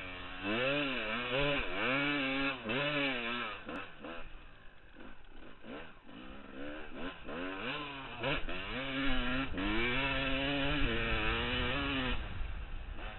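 Kawasaki KX250 motocross bike engine revving hard and dropping back again and again as the throttle is worked, swinging up and down about once a second at first. It goes quieter and choppier for a few seconds in the middle, then pulls up to high revs again. Wind buffets the microphone in the later part.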